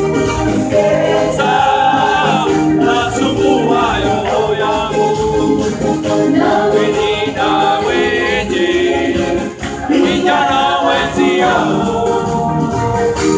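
Live band playing a song with keyboard and electronic drum pad, with voices singing over it through the PA.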